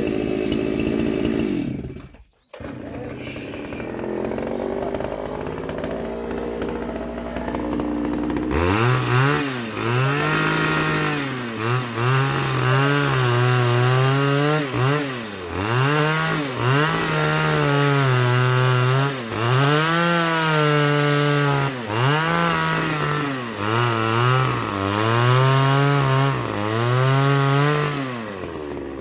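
Two-stroke chainsaw running at a low idle, then from about eight seconds in revved hard and cutting into pine wood. The engine pitch sags and recovers again and again as the chain bites and clears.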